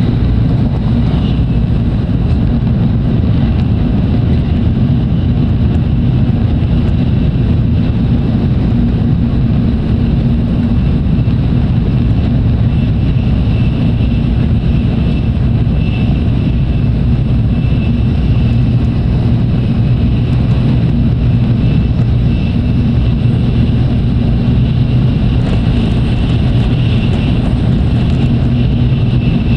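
Tokaido Shinkansen train running at speed, heard inside the passenger cabin: a loud, steady low rumble with a faint high whine that comes and goes.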